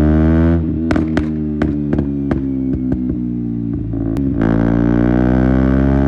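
KTM Duke 125 single-cylinder engine through an Akrapovic exhaust with a GPR decat link. It runs at a steady speed, then the throttle closes about half a second in and the exhaust pops and crackles on the overrun for a couple of seconds. About four seconds in the rider opens the throttle again and the engine pulls steadily.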